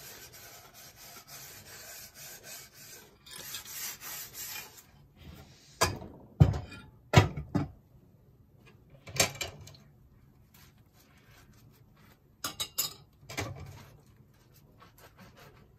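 Dishes scrubbed by hand with a sponge at a stainless steel sink: a steady rasping rub for about five seconds, then a handful of sharp knocks and clatters as dishes are handled and set down.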